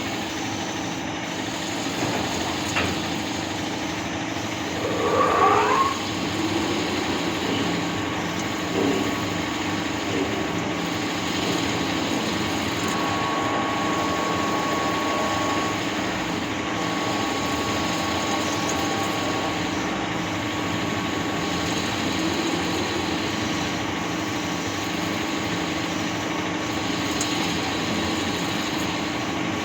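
ACE LT-2 CNC lathe running a turning cycle: a steady machine hum with a whining tone, and a brief louder gliding whine about five seconds in.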